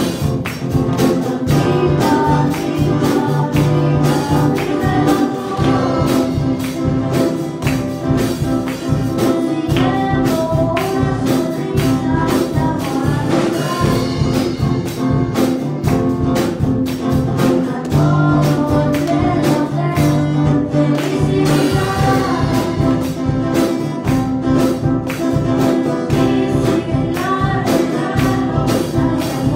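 A girl singing a Spanish Christian song into a microphone over a backing track with a steady beat.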